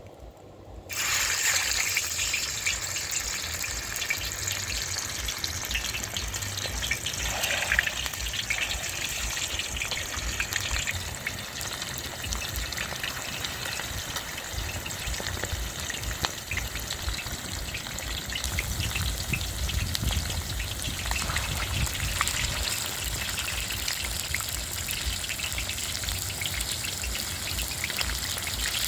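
Fish frying in hot oil in a pan: a dense sizzle full of small crackles and pops that starts suddenly about a second in and then keeps on at a steady level.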